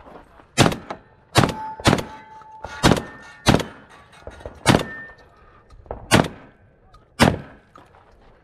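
Eight gunshots fired at irregular intervals, about half a second to a second and a half apart, with a short ringing tone after the second shot.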